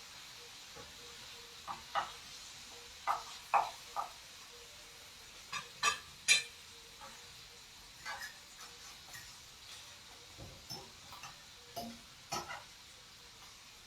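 Food frying in a pan with a faint steady sizzle, while a cooking utensil knocks and scrapes against the pan in irregular clinks, the loudest a few seconds in.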